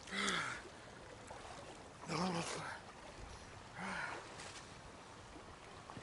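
A man's short gasping cries from the shock of icy water, three times about two seconds apart, over a shallow mountain stream running.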